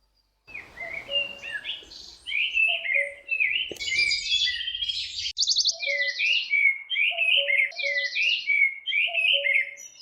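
Songbird singing a fast, unbroken run of chirps and trills. It starts abruptly and cuts off and restarts sharply about five seconds in.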